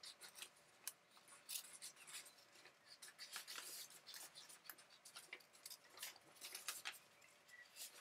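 Small scissors cutting through a sheet of drawing paper: a run of faint, short, irregular snips with light paper rustle.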